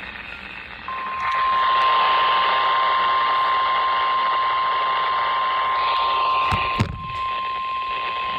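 NOAA Weather Radio warning alarm tone, the steady 1050 Hz single-pitched beep that comes before an alert message, starting about a second in and holding, heard through a radio receiver with static hiss. A brief thump comes about seven seconds in.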